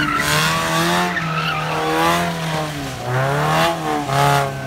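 First-generation Mazda MX-5 Miata's four-cylinder engine revving up and down about three times as the car slides, its tyres squealing and skidding on the concrete with each burst of throttle.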